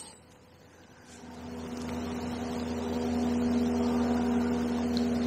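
A steady engine drone comes in about a second in, grows louder over the next couple of seconds at an unchanging pitch, then holds.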